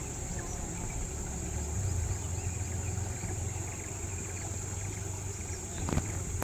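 A steady low engine hum, like a boat motor on the river, louder from about two seconds in, over a constant high drone of insects; a short knock near the end.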